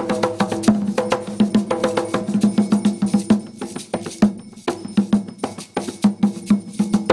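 Afro-Umbanda ritual percussion: hand drums beaten in a fast, steady rhythm, with a sharp, wood-block-like clicking beat over them. The drumming thins out around the middle and builds up again near the end.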